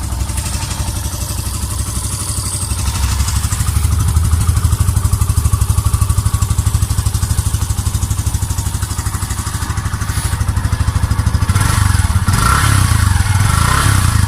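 Exhaust of a 2020 Yamaha FZ S FI V3's 149 cc single-cylinder engine running at idle with a steady, even beat, getting a little louder around four seconds in and again near the end.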